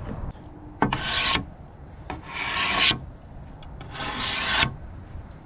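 Three rasping scrapes, each lasting about half a second to a second, with short pauses between them.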